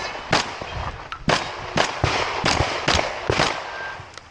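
Gunshots from a competitor shooting a practical-shooting stage: about eight sharp shots at uneven spacing, in pairs and singles with short pauses between them.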